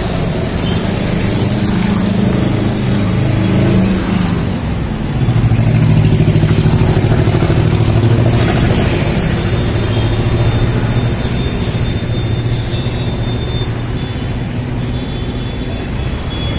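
Motor vehicle engine running in street traffic, with a low steady drone that grows louder about five seconds in, as if accelerating.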